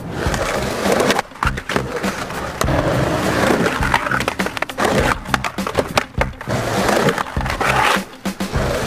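Skateboard wheels rolling on concrete, with sharp clacks of the board popping and landing, over background music.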